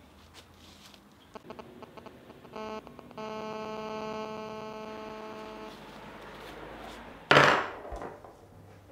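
An electronic buzzing tone: a short beep, then a held tone of about two and a half seconds that slowly fades. Near the end comes a brief loud burst of rushing noise.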